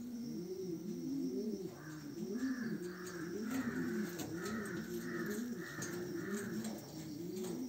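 Domestic fancy pigeons cooing: many overlapping low coos, each rising and falling in pitch, repeating steadily.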